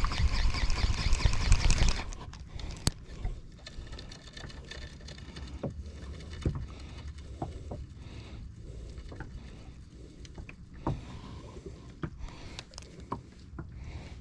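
Shimano Vanford spinning reel whirring as it is cranked fast on a jigging retrieve, stopping abruptly about two seconds in. Then quieter water lapping with scattered small clicks and knocks.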